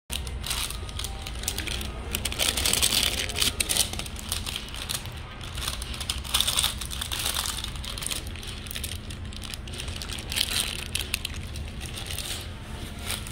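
Sandwich wrapping paper crinkling and rustling as a wrapped egg sandwich in a cardboard sleeve is handled, in three louder bursts about two, six and ten seconds in, over a steady low hum.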